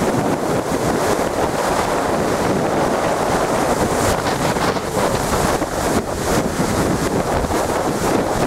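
Rough storm sea surging and breaking against a sea wall, with strong wind buffeting the microphone in a steady, dense rush.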